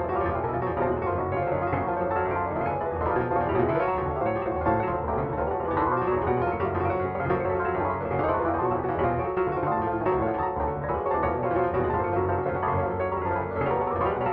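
Piano played from MIDI, a rap song's melody arranged for keyboard: a continuous run of melody and chords over a bass line, without pauses.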